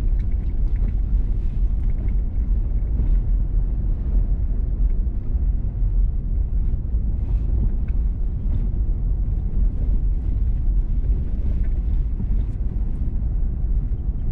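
A vehicle driving on a gravel road: a steady low rumble of tyres and engine, with scattered light ticks throughout.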